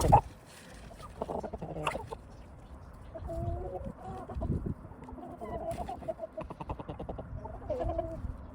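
Chickens clucking: a run of wavering, drawn-out hen calls with quick pulsed clucks between them. A sharp knock sounds right at the start.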